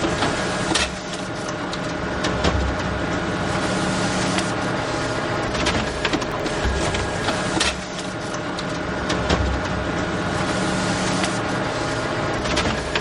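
Photocopier running: a steady machine hum with sharp clicks and low clunks that repeat in a cycle of about seven seconds.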